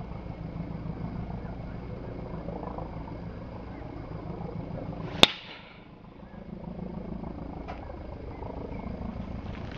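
A golf driver striking a teed ball: one sharp click a little past halfway through, over a steady low rumble.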